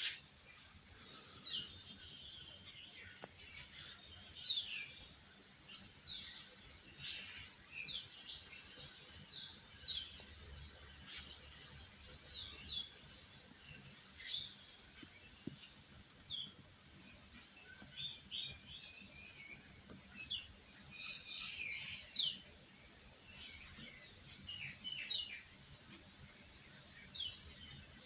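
Birds chirping, many short quick down-slurred chirps coming irregularly throughout, over a steady high-pitched drone of insects.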